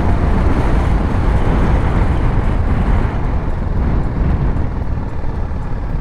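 BMW G310GS single-cylinder motorcycle being ridden, its engine and road noise mixed with wind rushing over the bike-mounted GoPro's microphone: a steady low rumble.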